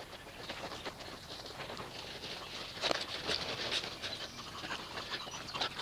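Wet microfiber wash mitt rubbing over a car's soapy paint: a run of short, irregular swishing strokes.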